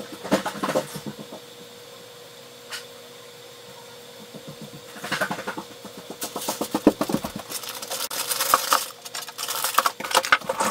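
Irregular runs of small sharp clicks and rattles, in clusters near the start and again through the second half, over a faint steady hum.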